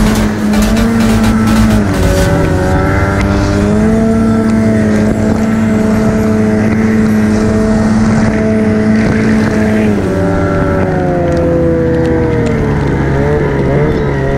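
Turbocharged Ski-Doo 850 two-stroke snowmobile engine running hard under way. Its pitch holds steady, dips about two seconds in, climbs back a couple of seconds later, and drops again after about ten seconds as the throttle comes off.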